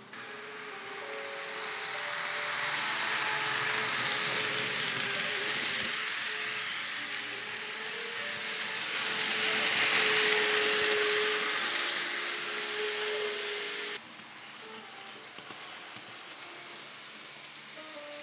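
N scale model passenger trains rolling along the layout track: a steady hissing rush of small wheels on rail that swells as the cars pass close to the microphone. It drops sharply about fourteen seconds in to a quieter hiss.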